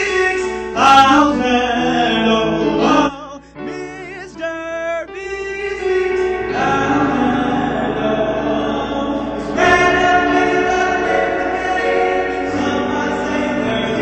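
A song with several voices singing together over the music. It drops to a thinner, quieter passage about three seconds in and comes back fuller a few seconds later.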